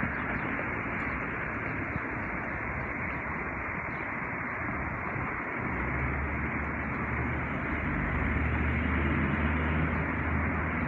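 Steady outdoor background noise heard through a handheld phone's microphone while walking, with a low steady hum coming in about halfway through and rising slightly.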